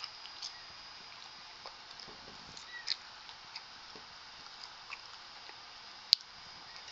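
Young kittens moving about on carpet: soft scratching and small clicks, with a brief high squeak about three seconds in. A single sharp click comes about six seconds in.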